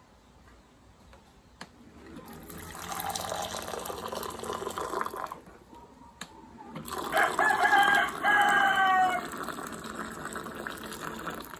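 Hot water running from an airpot dispenser into a glass mug over tea leaves, in two spells with a short break in between. Partway through the second spell, about seven seconds in, a rooster crows loudly over the pouring.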